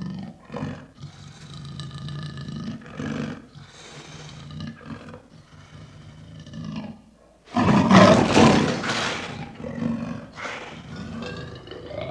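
Panther growling in a series of low calls, with one much louder roar about two-thirds of the way through.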